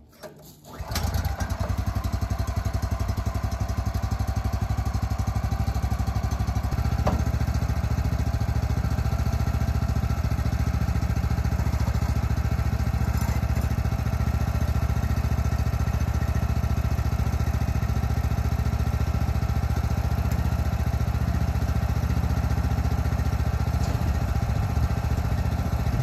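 An engine starts about a second in and then runs steadily, with a slight rise in its low end near the seven-second mark.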